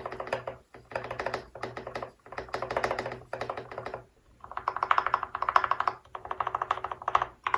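Fast typing on a Royal Kludge RK61 60% mechanical keyboard with lubed and filmed Gateron Brown switches: rapid runs of keystrokes in bursts with short pauses between them.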